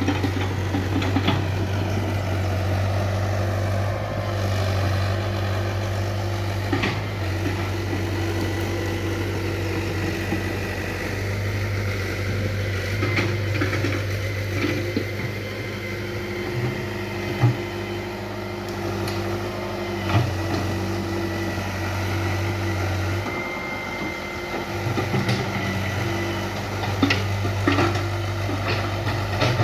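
Hitachi UH035 hydraulic excavator's diesel engine running steadily, with a few sharp clanks in the second half.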